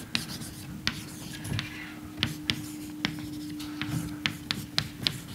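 Chalk writing on a chalkboard: an irregular run of sharp taps and short scrapes as the strokes of an equation go down. A faint steady hum lies underneath and stops about five seconds in.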